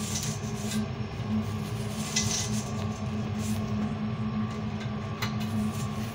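Bristle brush scrubbing the pin fins of an Ideal Evomax 150 boiler's heat exchanger, a few short scratchy strokes over a steady low hum.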